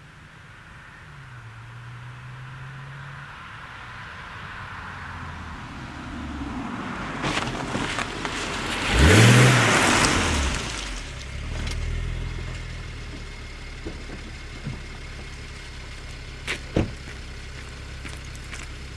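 BMW 325i N53 straight-six running through a 330i rear silencer. The exhaust note builds gradually, peaks in a loud, brief rev about nine seconds in, then drops back to a lower steady run.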